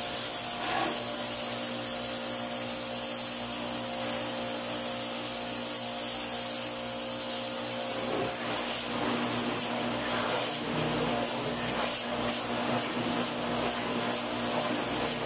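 Electric pressure washer running steadily, with the hiss of its water jet spraying on a window air conditioner's coils. The pitch of the motor's hum changes about eight seconds in.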